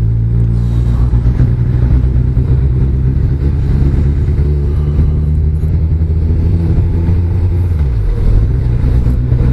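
Motorcycle engine running steadily under the rider. Its pitch drops sharply about eight seconds in, then settles.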